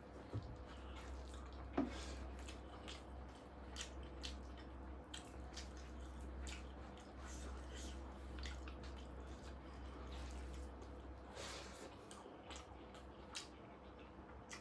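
Close-up eating sounds: wet chewing, lip smacks and many small irregular clicks of a man eating spicy chicken and fried rice, over a low steady hum. A sharper click comes about two seconds in, and a longer breathy noise near the end.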